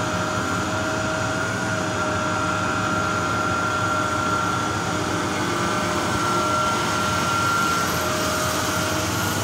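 Steady drone of heavy open-pit mining machinery with a high whine running through it, the whine shifting slightly in pitch a couple of times.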